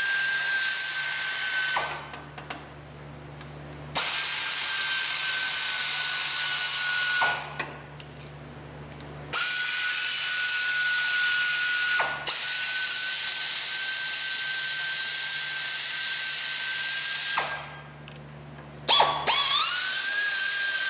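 Air ratchet running in several runs of a few seconds each, a hissing whine with short pauses between, spinning out valve cover bolts on a Subaru EJ253 engine. The last run starts with a rising whine as the tool spins up.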